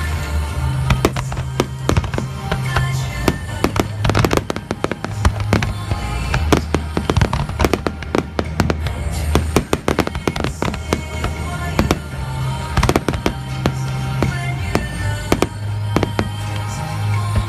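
Fireworks bursting and crackling in rapid, irregular bangs over a loud music soundtrack with a steady bass line.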